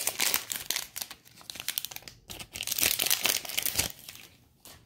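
Foil hockey card pack wrapper crinkling as it is torn open and pulled off the stack of cards, in two spells of crackle with a short break about two seconds in, dying away near the end.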